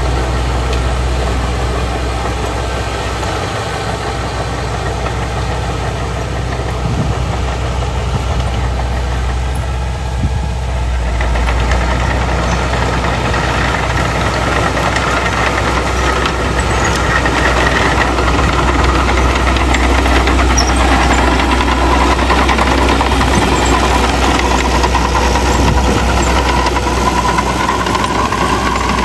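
Diesel engine of heavy earthmoving machinery running steadily, getting louder about halfway through, with a faint rising whine near the end.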